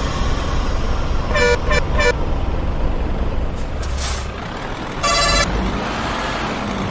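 Steady vehicle engine rumble with horn toots: three short beeps about a second and a half in, then one longer toot about five seconds in.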